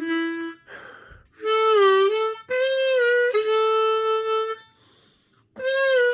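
Suzuki Manji diatonic harmonica in D being played: several held notes, some bent down in pitch and back. A breathy rush sounds about a second in, and there is a short pause near the end.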